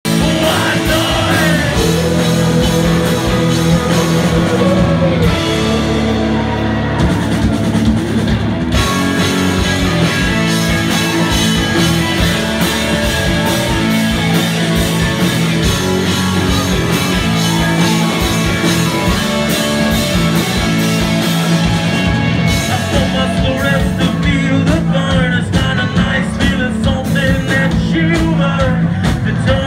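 Live rock band playing on stage: electric guitars and a drum kit with a singer, a dense, loud, continuous mix heard from within the crowd.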